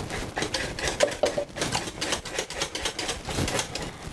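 Wire whisk beating a thick green banana mixture in a stainless steel saucepan, rattling against the pot's sides in a fast, irregular run of metallic clicks.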